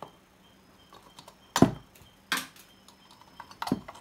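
Sharp clicks and knocks of hand tools and parts on a workbench while power transistors are taken off an amplifier board, three louder ones a little under a second apart in the second half, with smaller ticks between.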